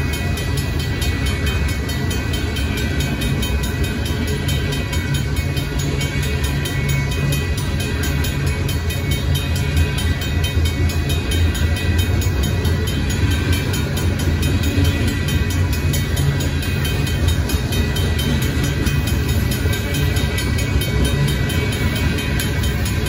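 Freight train tank cars rolling past a grade crossing: a steady, loud rumble of steel wheels on the rails that holds without a break.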